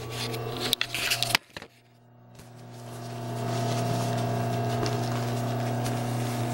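Rustling and handling of a fabric and vinyl motorcycle seat cover as it is turned inside out, with a few clicks. After a brief drop to near silence, a steady electric hum rises over about a second and then holds.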